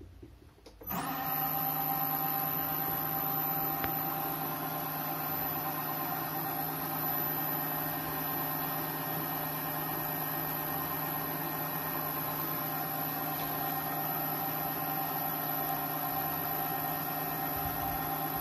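Mini lathe starting up about a second in, its motor whine rising quickly, then running steadily with a constant hum and a high-pitched whine.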